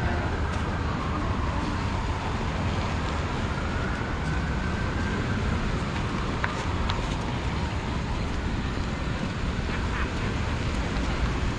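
Steady street ambience of road traffic along a city avenue, a continuous low rumble of passing vehicles, with a few faint clicks.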